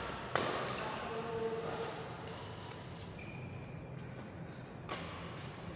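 Badminton racket striking a shuttlecock with a sharp crack that rings on in a large hall, then a lull with faint distant voices, and another sharp hit near the end.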